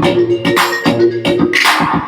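A song with a steady beat and melody played through a 10 W portable Bluetooth speaker under test.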